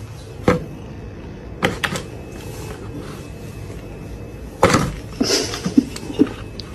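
A plastic basin being knocked and bumped a few times over a steady background hiss, with a brief scraping clatter near the end.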